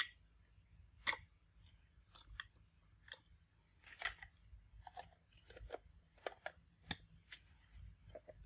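Carrot chunks knocking against the plastic bowl of a Kenwood mini chopper as they are put in by hand, a string of irregular faint clicks and taps, with the lid being fitted near the end.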